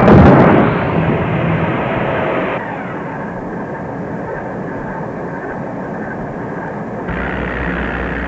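A loud sudden hit, then a steady rushing noise. About two and a half seconds in it turns duller, and a low hum joins it near the end.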